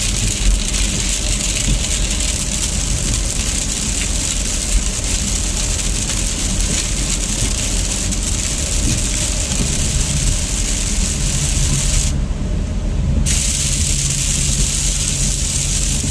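Car driving on a wet road in rain, heard from inside the cabin: a steady low road and engine rumble under a high hiss of tyre spray and rain. The hiss cuts out briefly for about a second near the end.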